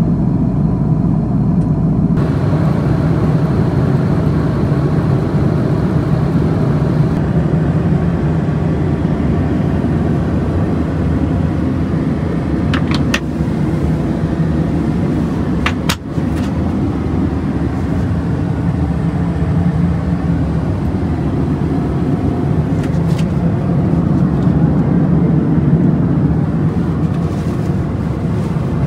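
Steady airliner cabin noise inside an Airbus A330-300: a loud low hum of jet engines and rushing air, with a few brief clicks near the middle.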